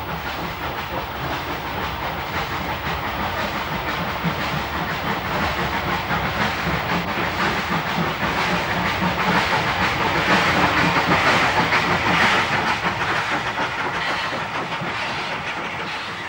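Bulleid Pacific steam locomotive working steam, with rapid exhaust beats and hiss. It grows louder as it approaches, is loudest about ten to twelve seconds in as it passes beneath, then fades.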